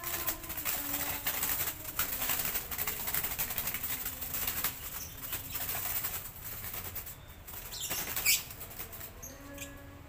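A caught bird fluttering and beating its wings in the cage trap, in rapid rustling flurries with short pauses. There is a short high falling note about eight seconds in.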